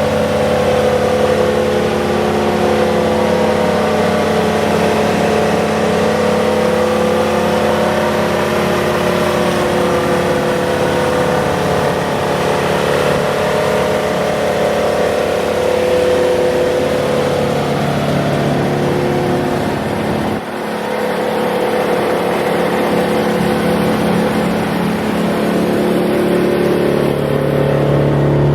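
Vermeer BC1000XL wood chipper's engine running steadily, its pitch shifting slightly now and then, with a brief drop in level about two-thirds of the way through.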